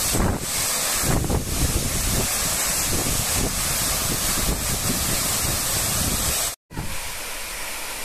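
Waterfall pouring onto rocks and a pool close by, a loud steady rush of water with gusty buffeting on the microphone. The sound breaks off for an instant about six and a half seconds in.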